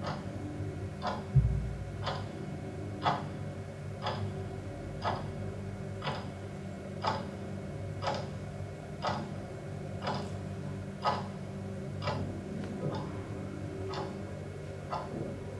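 A clock ticking steadily, about one tick a second, over a steady low hum. There is a single low thump about a second and a half in.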